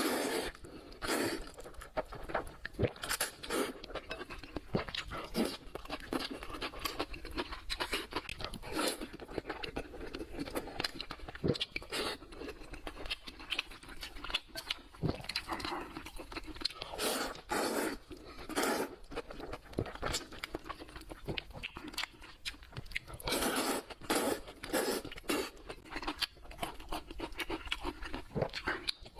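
Close-miked eating: irregular crunching and chewing, with many short, uneven clicks and mouth noises.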